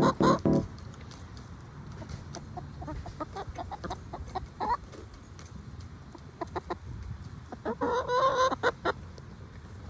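Chickens clucking: a few loud clucks at the start, then scattered short clucks and a longer, louder call about eight seconds in.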